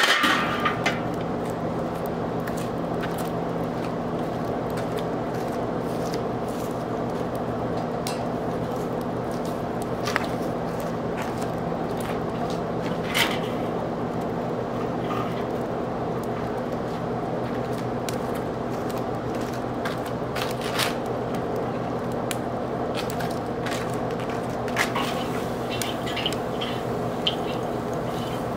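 Metal clanks and scrapes from a Weber kettle grill as its lid is lifted off at the start, loudest then, and as a turkey on a wire rack is set onto the cooking grate. A few more scattered clicks follow, over a steady low hum.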